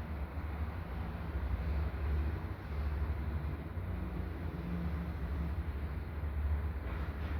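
Steady low rumble with a hissy noise above it, even throughout with no distinct knocks or tones.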